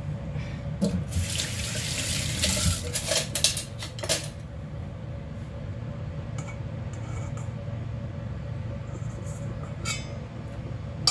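Lime juice squeezed by hand and splashing into a stainless steel bowl for about three seconds, then a few faint clinks of a spoon in the bowl and a sharp click near the end.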